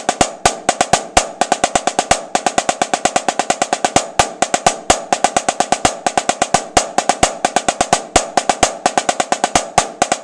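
Snare drum played with two wooden sticks: a fast, unbroken stream of strokes with louder accents standing out at intervals.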